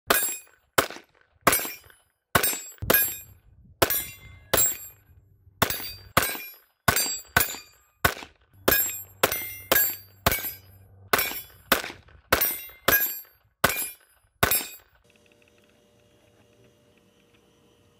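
Sig P322 .22 LR pistol fired in a rapid string of about twenty sharp shots, one to two a second; the string stops about 15 seconds in.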